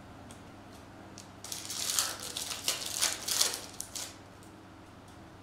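A stack of baseball trading cards being handled and shuffled by hand: about two and a half seconds of papery rustling and clicks.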